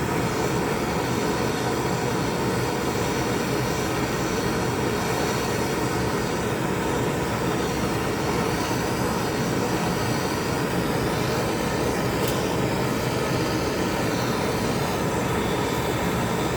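Handheld gas torch flame running steadily, heating a soldered copper pipe fitting to melt the solder and free the fitting.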